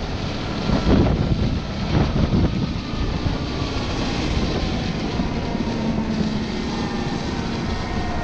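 Caterpillar 926M wheel loader's diesel engine running steadily while it pushes heavy wet snow with a plow, with a few knocks in the first couple of seconds and the engine pitch rising slightly near the end.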